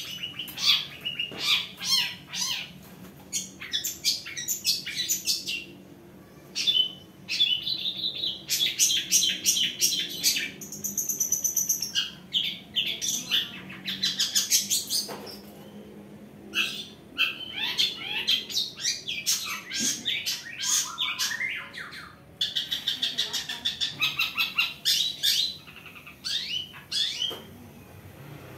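Caged long-tailed shrike (cendet) calling in bursts of rapid, harsh chattering notes a few seconds long, with short pauses between them and a brief high whistle near the middle.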